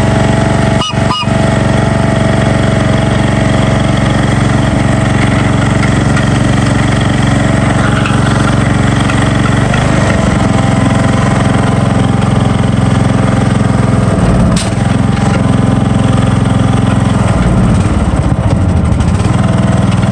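Briggs & Stratton engine of a Craftsman LT1000 riding lawn mower running steadily, with a couple of brief dips in level about a second in.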